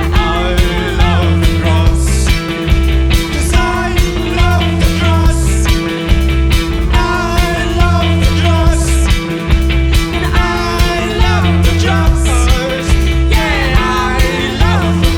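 Rock band playing live: drums with regular cymbal crashes, a heavy bass line, and bending lead lines over a steady held note.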